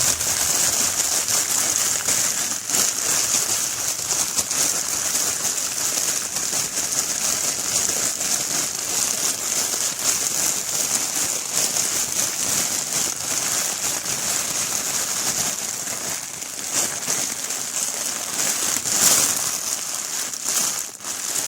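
Heavy rain falling steadily: a dense, even hiss with crackling drops, briefly louder near the end.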